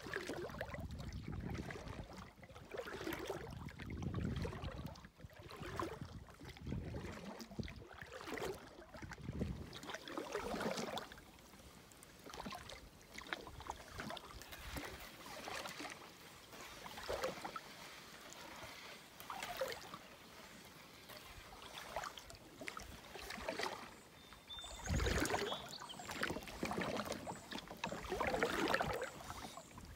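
Paddle strokes in still water beside an Old Town Pack canoe: a swish and splash of water about every two seconds, with a louder splash and thump about 25 seconds in.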